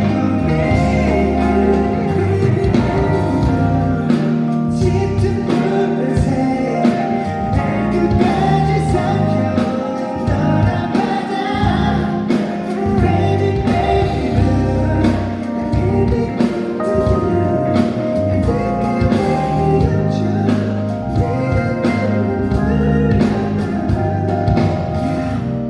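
Live K-pop ballad performance: a male lead vocal sung over full band and backing-track accompaniment, with layered backing voices.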